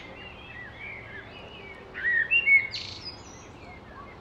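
Small birds chirping and twittering in short calls, with a livelier cluster about two seconds in, followed at once by a brief swish.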